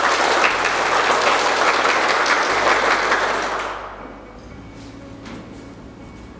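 A group of about twenty men clapping together, a dense round of applause that dies away about four seconds in.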